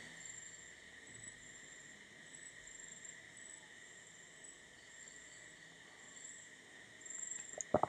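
Faint crickets trilling: a steady high trill, with a higher chirp that comes and goes in short spells. A few soft clicks just before the end.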